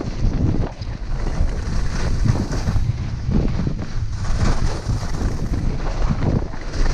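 Wind buffeting the camera's microphone during a fast ski descent, a constant low rumble, with a swelling hiss and scrape roughly every second as the skis carve turns on hard-packed snow.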